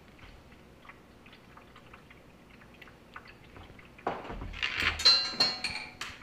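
Faint small clicks of plastic Lego minifigure pieces being handled and fitted together. From about four seconds in there is a louder rubbing and scraping noise lasting about two seconds, as the recording phone is moved and handled.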